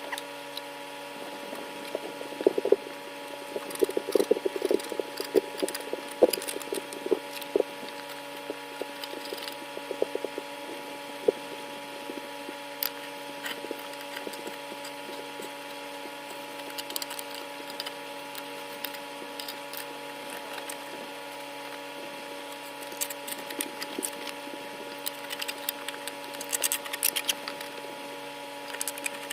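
A garden shovel scraping and knocking caked old grass off the underside of a lawnmower deck, in irregular bouts of scrapes and knocks, heaviest a few seconds in and again near the end. A steady hum runs underneath.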